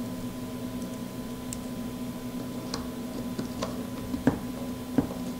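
Scattered light clicks and ticks as small screws and a small screwdriver are handled against a carbon-fibre drone frame, the two sharpest near the end, over a steady low hum.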